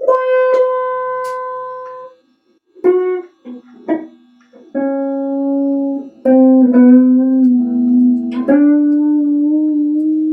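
Slow instrumental guitar music: single plucked notes struck and left to ring, some held for about two seconds, with short pauses between phrases.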